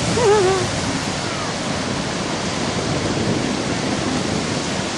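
Steady wash of breaking surf. A brief wavering cry sounds just after the start.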